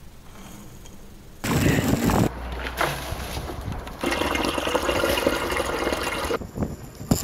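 Freshly pressed apple juice pouring in a steady stream from a wooden cider press into a stainless steel bowl, for a couple of seconds in the second half. A brief loud rush of noise comes about a second and a half in.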